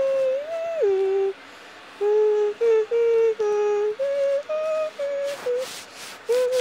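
A person humming a wordless tune in a string of held notes, some sliding up or down in pitch, with short pauses between phrases and a brief breathy hiss near the end.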